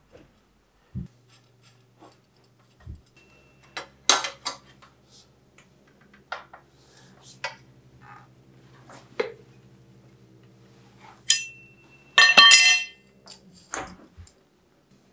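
Metal tools clinking and knocking against a bicycle crankset while the crank arms are worked off: scattered sharp clinks, with a louder ringing metal clatter about twelve seconds in, over a faint steady hum.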